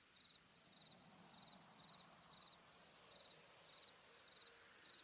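A cricket chirping faintly and steadily, about two short pulsed chirps a second.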